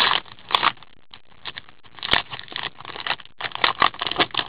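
A hockey card pack being torn open and its cards handled: irregular crinkling and rustling, with one sharp click about two seconds in.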